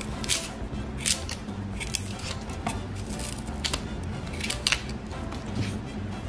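Chef's knife blade scraping and catching the dry papery skin of small red onions as it is peeled away by hand, giving short crisp crackles and scrapes at an uneven pace, about one a second.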